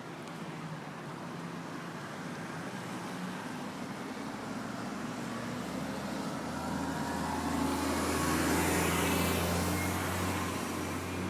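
City street traffic: a motor vehicle's engine and tyre noise grow louder as it passes close by, loudest about eight to nine seconds in, then fade.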